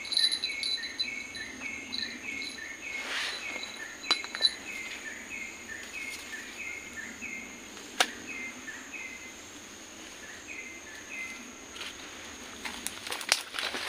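Tropical forest insects: a steady high drone, with a short chirping call repeated about three times a second that pauses briefly near the end. One sharp click about eight seconds in.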